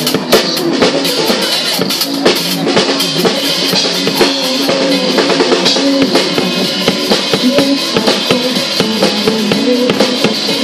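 Drum kit played in a steady, busy beat along with a pop song's backing track, in a passage without singing.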